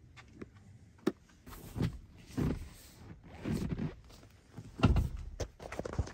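Irregular rustles and thumps of someone moving about inside a pickup truck's cab, with a sharp click about a second in and a louder thump about five seconds in.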